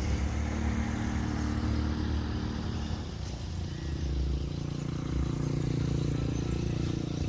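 Motor vehicle engine running steadily, its note changing about three seconds in.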